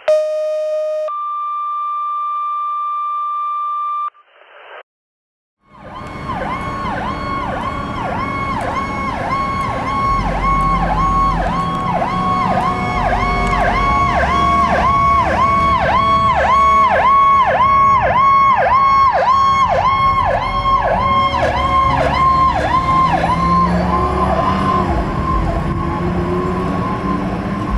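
A short chime of electronic intro tones, then a fire engine's electronic siren yelping fast, about two rise-and-fall cycles a second, over the rumble of the truck's engine. A second, lower siren tone slowly falls in pitch underneath, and near the end the yelp gives way to a steadier tone.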